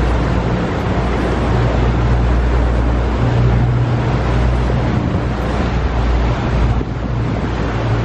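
Boat engine running steadily underway, a constant low hum, under the even rush of wind and water passing the moving hull.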